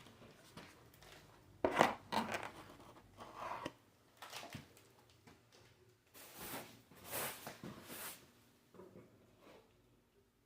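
Irregular scraping, crinkling and tearing noises in a series of short bursts, with a louder cluster in the middle.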